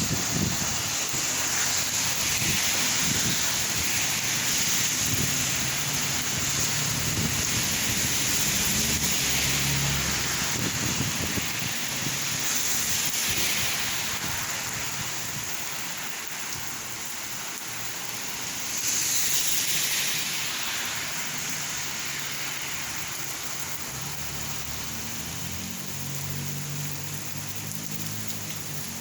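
Rain falling steadily, swelling louder three times: near the start, about halfway through, and again a few seconds later.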